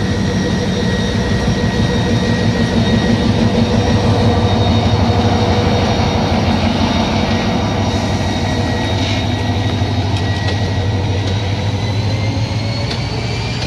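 Bangladesh Railway Class 2700 diesel-electric locomotive passing close by, its diesel engine running loud with a deep steady hum and a steady whine over it. The sound peaks about five seconds in and eases off slightly near the end as the locomotive moves on.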